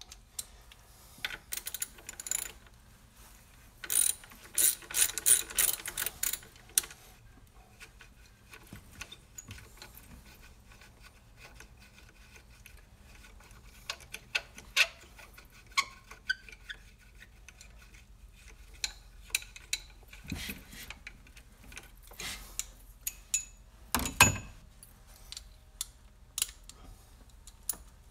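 Hand ratchet wrench clicking as bolts are worked under the hood, in a fast run of clicks about four seconds in, then scattered clicks and metal tool knocks, the loudest knock a few seconds before the end.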